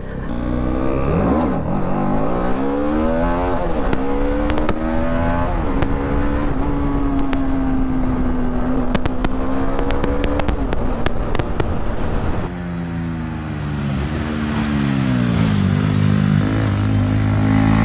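TVS Apache RR310's single-cylinder engine accelerating under way, its pitch climbing and dropping back with each upshift, then holding steady for several seconds at cruising speed. In the last few seconds the pitch falls twice as the throttle is eased and picks up again.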